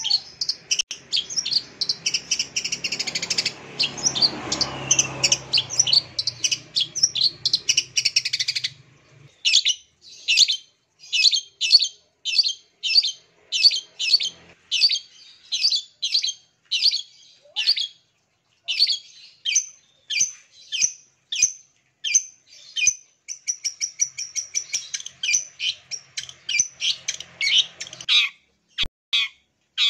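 Long-tailed shrike (cendet) singing: a dense, fast, unbroken warble for the first eight seconds or so, then a run of sharp, separate high notes at about two a second, with a brief trill near the end.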